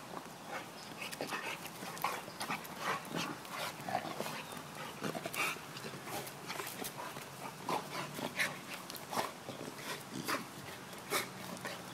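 Two pit bulls play-fighting: an irregular stream of short scuffles and brief dog noises as they wrestle.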